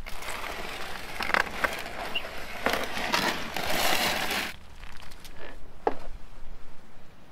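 Metal tray holding a foil-wrapped whole roast lamb dragged out of a wood-fired brick oven: scraping and foil crinkling for about four and a half seconds, then a few light knocks.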